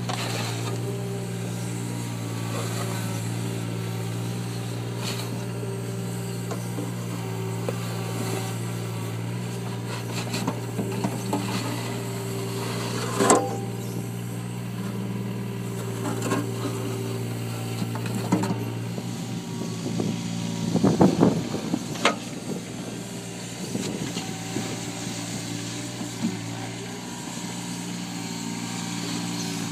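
Takeuchi mini excavator's diesel engine running steadily while the steel bucket scrapes and pushes soil and stones, with scattered knocks and a short burst of clattering about two-thirds of the way through.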